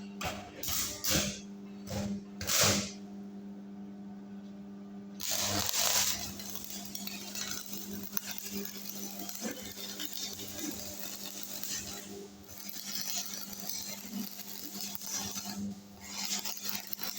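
Stick welding with a 6013 3 mm electrode on a Thunderbolt welding machine: a few short scratches as the arc is struck, then from about five seconds in the arc runs steadily with a continuous hiss, breaking off briefly about twelve and sixteen seconds in. A steady hum sits underneath.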